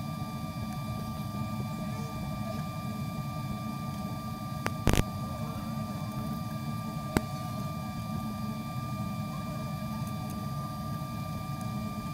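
Steady high-pitched electrical whine with a low hum beneath it, broken by two short clicks about five and seven seconds in.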